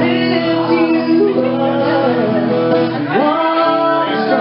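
A song played on acoustic guitar with singing over it, in a country style.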